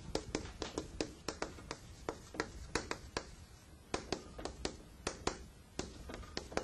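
A run of faint, light taps or clicks, about three or four a second and unevenly spaced, with a couple of short gaps.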